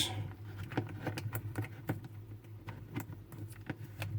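Scattered light clicks and taps of a multimeter and its test probes being handled while setting up a continuity test, over a low steady hum.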